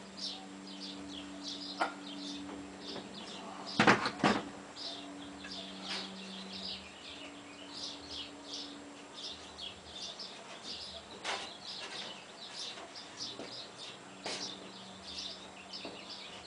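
Small birds chirping continuously in the background, with a handful of sharp knocks and clicks from wood and tools being handled, the loudest a quick double knock about four seconds in. A steady low hum runs under the first half and stops.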